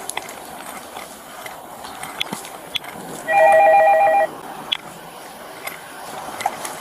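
An electronic telephone rings once, a trilling two-tone burst about a second long in the middle, with faint scattered clicks around it.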